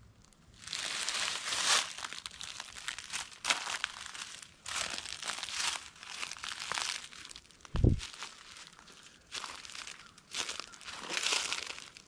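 Footsteps crunching through a thick layer of dry fallen oak leaves, roughly one step a second with uneven rustling. There is a single brief low thump about eight seconds in.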